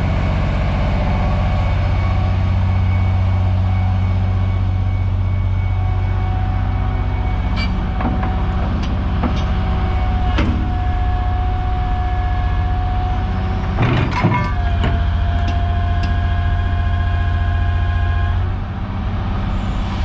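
A 2008 Komatsu PC750-7 hydraulic excavator's diesel engine runs steadily under steady whining tones that change pitch a few times. There are a few sharp clanks, with a louder burst of knocks about two-thirds of the way in. The engine note drops near the end.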